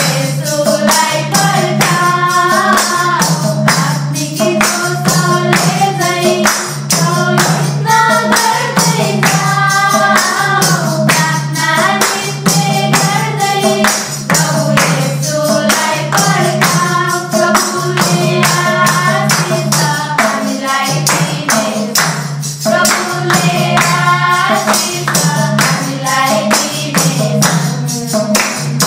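A small group of young voices, mostly women's, singing a Nepali Christian bhajan together, with hand clapping and a jingling handheld tambourine keeping a steady beat.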